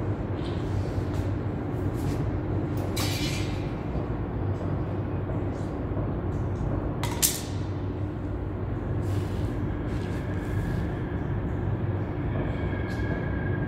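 Steady machine hum with a few scattered knocks, and a sharp click about seven seconds in.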